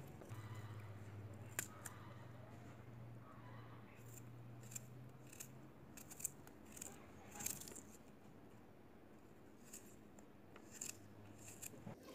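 Small kitchen knife slicing through a peeled onion held in the hand: crisp, irregular clicks as each piece is cut off, over a faint low hum.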